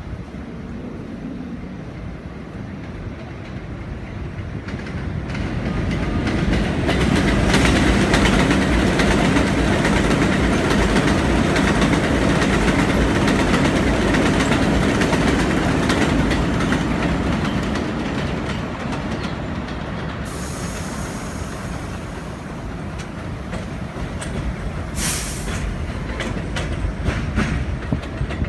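Elevated subway train running along the steel structure, its rumble and wheel clatter building over several seconds, staying loud for a while, then easing off. A high squeal comes in during the last third.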